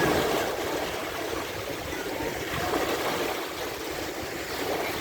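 Sea waves washing up on a sandy beach: a surge of breaking water right at the start, easing into the rush and gurgle of foamy water running over the sand.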